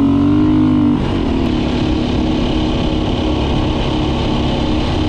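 Dirt bike engine running under throttle while riding. It holds a steady pitch for the first second, then eases slightly lower and runs evenly at part throttle.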